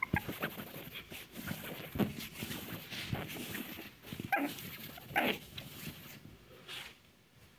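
A chihuahua puppy giving several short barks while playing and biting at a blanket, with the cloth rustling.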